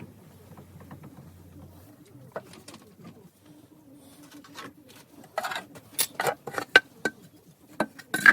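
Sharp clicks and knocks of metal parts and tools being handled, coming thick and fast in the second half, some with a brief ring. Before them, a short steady low hum about halfway through.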